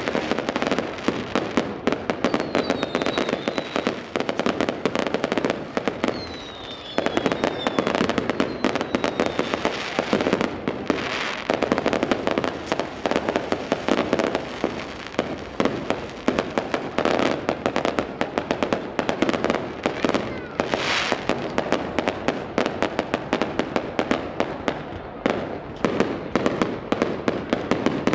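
Fireworks display: a rapid, continuous barrage of bangs and crackling bursts. Two short falling whistles sound a few seconds in.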